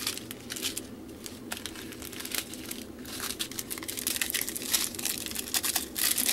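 Small plastic bags of diamond painting drills crinkling and crackling as they are handled and a strip of packets is pulled straight, sparse at first and busier from about halfway.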